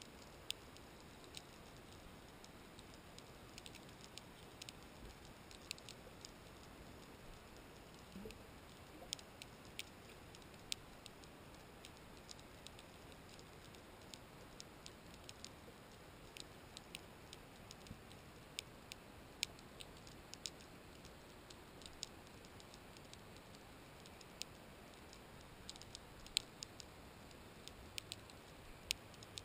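Irregular sharp clicks underwater, a few a second with some louder than others, over a faint steady hiss.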